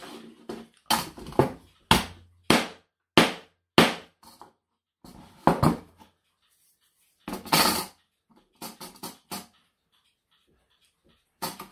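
A run of sharp knocks, six about every half second, then two heavier ones and a few light taps. They come from hammering a bent brass clock chapter ring between blocks of wood to flatten it.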